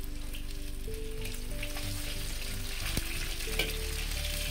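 Yellow croaker sizzling as it pan-fries in oil in a wok, with a metal spatula scraping under it as it is turned over. There is a sharp knock of the spatula against the wok about three seconds in, and a smaller one just after.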